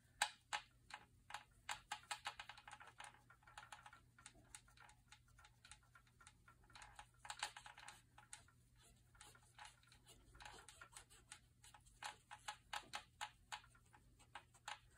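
Alcohol swab being scrubbed and twisted over the plastic hub of a central venous catheter lumen, the 15-second hub scrub that disinfects it before access: faint, rapid, irregular scratchy clicks and rubbing.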